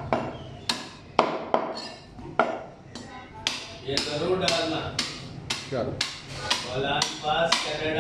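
Butcher's cleaver chopping through mutton ribs onto a wooden chopping block: a dozen or more sharp chops, one or two a second.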